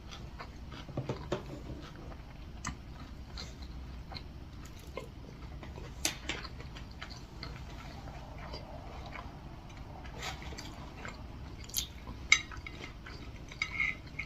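Close-up chewing and mouth sounds of someone eating, with scattered short sharp clicks.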